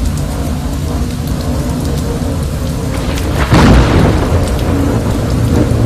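Thunderstorm sound effect: steady rain with a low rumble underneath, and a louder clap of thunder about three and a half seconds in.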